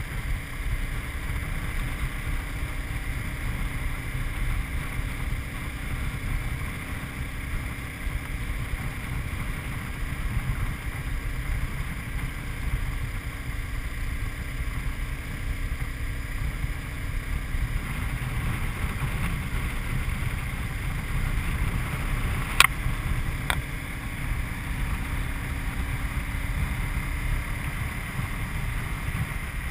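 Honda CBR250R's single-cylinder engine cruising steadily, mixed with the rush of wind as the motorcycle rides along. Two sharp clicks come about three-quarters of the way through.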